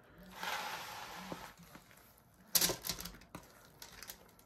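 Sticky toffee-coated corn sticks sliding and crackling out of a stainless steel bowl into a parchment-lined cake pan, scraped along by a silicone spatula, with a louder scrape or knock about two and a half seconds in and a few small clicks after it.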